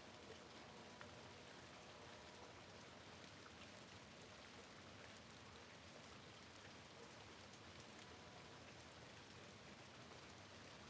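Faint, steady rain falling, an even hiss dotted with scattered light drop ticks.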